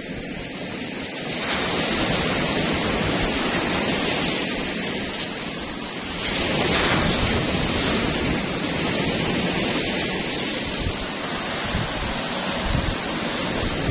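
Sea waves breaking on a gravel beach, rising in swells about a second and a half in and again about six and a half seconds in, with wind rumbling on the microphone.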